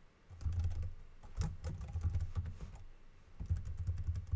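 Computer keyboard typing in two quick runs of keystrokes, with a short pause about three seconds in.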